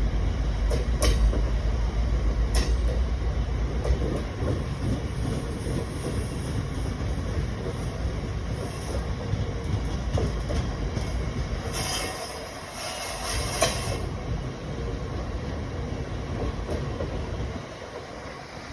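GB Railfreight Class 60 diesel locomotive passing under power, its engine rumbling loudly for the first few seconds and then fading as the loaded aggregate hopper wagons roll by with a few clicks over the rail joints. About twelve seconds in, a high wheel or brake squeal runs for about two seconds.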